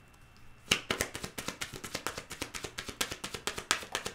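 A tarot deck shuffled by hand: a rapid, irregular run of card slaps and taps, starting about two-thirds of a second in and stopping just before the end.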